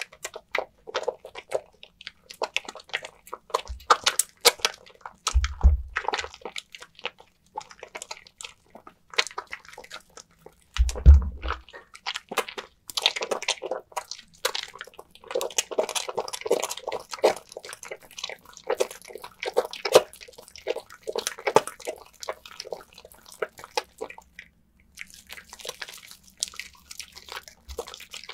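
A wet, soaked bar of lavender soap being rubbed and squeezed into lather: a steady run of wet squishing and crackling foam, with two dull low bumps about five and eleven seconds in.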